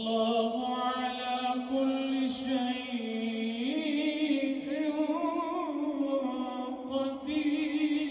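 A man's voice chanting Quran recitation through a microphone, drawing out one long melodic phrase without a break. The pitch steps up about three and a half seconds in and wavers in ornaments before settling.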